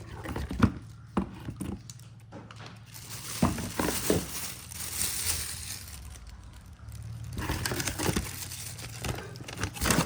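Packaging crinkling and rustling as a parcel is unpacked. A few light clicks and taps come first, then bursts of crinkling from about three seconds in, with a short lull near the middle.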